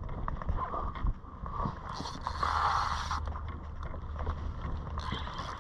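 Wind rumbling on the microphone over sea water washing around a kayak, with scattered small clicks and knocks, and a brief swell of louder rushing noise about halfway through.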